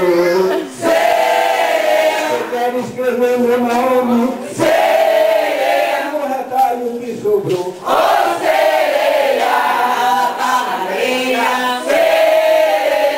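A group of people singing together, a song sung in phrases of about three to four seconds with brief breaks between them.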